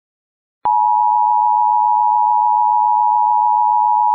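Emergency Alert System attention signal: a loud, steady electronic tone made of two close pitches just under 1 kHz, cutting in abruptly about half a second in.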